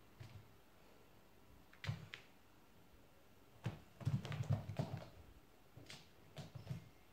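A cat's paws thudding and scratching on carpet and floor as it pounces and scrambles: scattered soft thumps and clicks, with a busy flurry of them in the middle.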